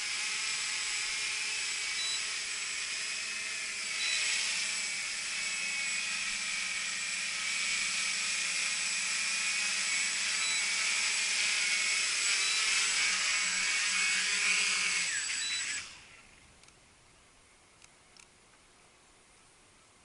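Walkera QR X350 Pro quadcopter's motors and propellers running with a steady high whine, with a few short high beeps from its battery alarm, which signals the pack has sagged to 10.7 V under load. About three-quarters of the way through, the motors cut off suddenly, leaving only faint ticks.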